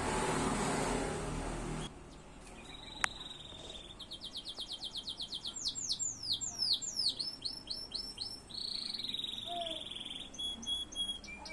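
A loud steady noise cuts off about two seconds in, and then a domestic canary sings: fast trills of repeated notes, quick downward-sweeping notes and a buzzy rolling trill.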